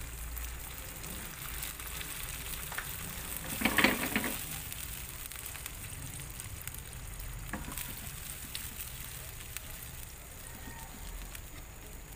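Water just poured into a hot frying pan of sautéed onions and meat, sizzling steadily. A brief louder noise about four seconds in and a single click near eight seconds.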